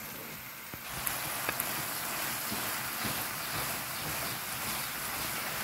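Onion and chicken mixture frying in a pan, a steady sizzling hiss as it is stirred with a spatula, with a few light clicks about a second in.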